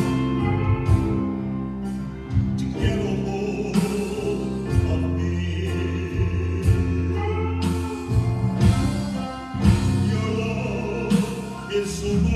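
A man sings a slow gospel worship song over a live band, with drum hits and low bass notes under the voice.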